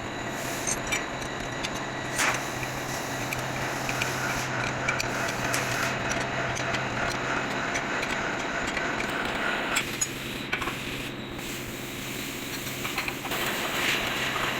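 Automatic drilling machine running with a steady hum and scattered metallic clicks and knocks, one sharper knock about two seconds in. From about ten seconds in the noise thins for a few seconds, then fills in again.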